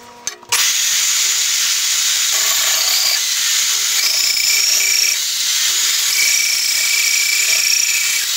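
Magnetic drill's motor switching on about half a second in and running steadily with a hissing whine as its bi-metal hole saw cuts into the steel, lubricated with cutting fluid, to remove a bullet-dented section.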